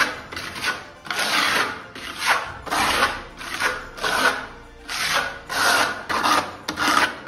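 Steel plastering trowel scraping cement-based adhesive render across a wall in repeated strokes, a little over one a second, as the first skim coat goes on.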